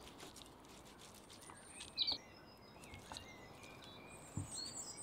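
Birds chirping faintly, with short high calls, the loudest about two seconds in. A few soft knocks come from a knife carving a leg of lamb on a wooden board.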